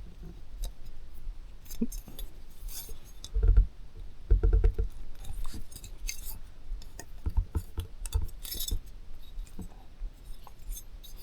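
Small motorcycle parts being handled: scattered clicks and light clinks, with a few dull thumps in the middle, as rubber grommets are pushed into the windshield bracket's mounting holes.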